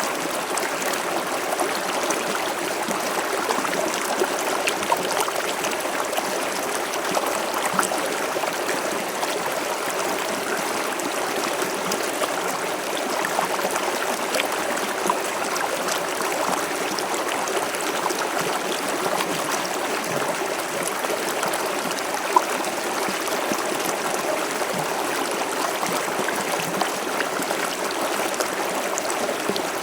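River water flowing steadily over rocks, a continuous rushing with small splashes and gurgles scattered through it.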